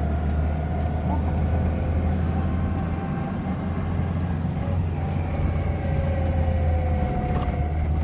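MAN 8.224 truck's six-cylinder diesel engine running steadily on the move, heard from inside the cab as a deep steady hum mixed with road noise.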